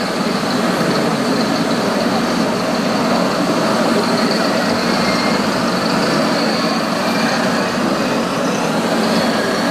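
Steady engine running from radio-controlled model construction trucks and machines, their sound units playing diesel engine noise, mixed with constant background noise.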